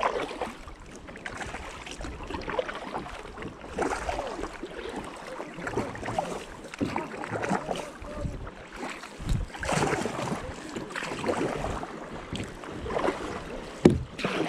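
Double-bladed kayak paddle dipping and pulling through calm river water in steady strokes, a splash and water trickling off the blade about every one and a half to two seconds. A single sharp knock near the end is the loudest sound.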